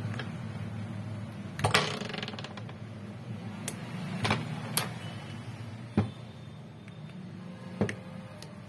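Phone back cover being pried open with a plastic opening tool: a string of sharp clicks and snaps as the glued cover gives way, the loudest about two seconds in, over a steady low hum.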